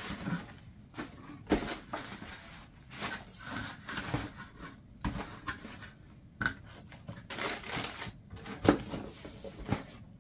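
Shoe packaging being handled as a pair of shoes is taken out: irregular rustling and crinkling with scattered knocks, the sharpest knock near the end.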